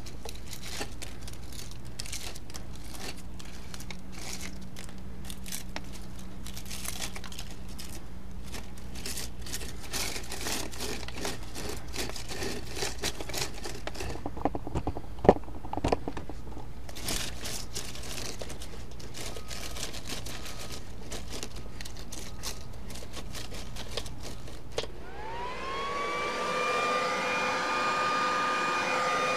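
Dry maple seeds and leaves crackling and crunching as a hand scrapes them off a wire-mesh gutter guard. Near the end an electric leaf blower starts, its whine rising and then settling into a steady high tone.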